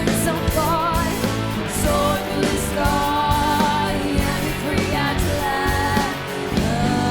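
Live rock music with drums, bass and electric guitar under a held, wavering melody line.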